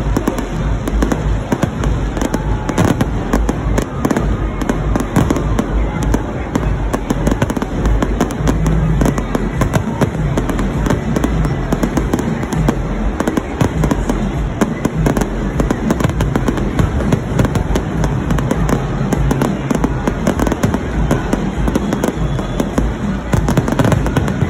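Fireworks display: aerial shells bursting in a dense, unbroken barrage of bangs and crackles.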